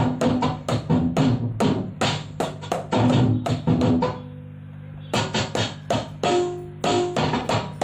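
Drum-led music: quick, evenly spaced drum hits over a steady bass line, with a break of about a second shortly after the middle before the hits start again.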